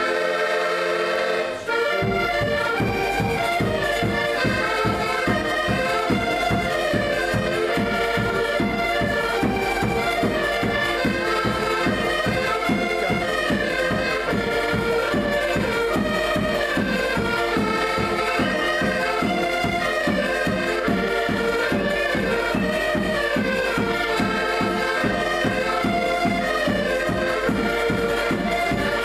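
A Portuguese folk band of several accordions with a bass drum playing a lively tune. A held accordion chord opens, and about two seconds in the full band comes in with a steady beat.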